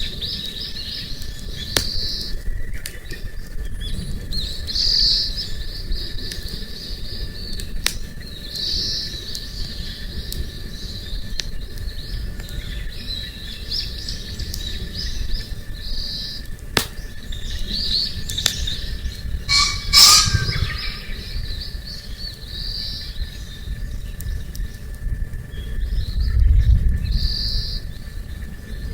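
Small birds singing and chirping over and over, with a few sharp pops of a wood campfire crackling, the loudest about two-thirds of the way through. A low rumble swells near the end.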